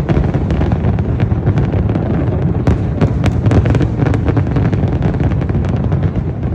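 Aerial fireworks going off in rapid succession: a continuous low rumble of booms with many sharp cracks, packed most closely a little past the middle.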